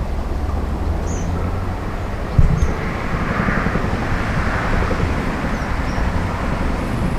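CH-47 Chinook tandem-rotor helicopter, its rotor blades beating in a fast even pulse under a steady engine noise. There is a brief louder knock about two and a half seconds in.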